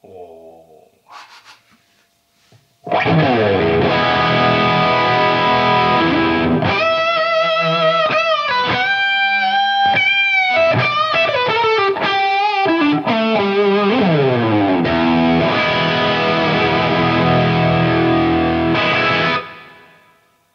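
Distorted electric guitar lead from a T's Guitars guitar through a Fractal AX8 amp modeler, sent from the AX8's phone (1/4-inch) output into a BSS AR116 DI box. It starts about three seconds in with a held chord, then plays a melodic line with string bends and vibrato and a slide down, and ends on another held chord that stops near the end and rings away.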